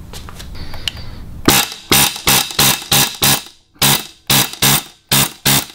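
Pneumatic air hammer fired in about a dozen short bursts, starting about a second and a half in, its chisel bit rattling against a stuck woodruff key on an outboard's drive shaft to break it loose.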